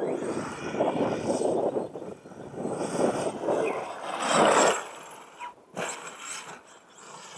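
Losi DBXL-E 2.0 electric RC buggy driving hard over a dirt track, its motor and tyres surging unevenly, loudest as it passes close about four and a half seconds in, then fading as it drives away.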